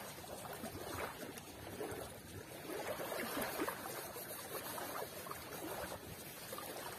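Small waves lapping and splashing at the water's edge, a steady wash of water sound.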